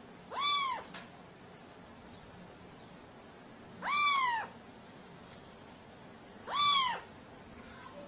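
Three short meows, about three seconds apart, each rising and then falling in pitch.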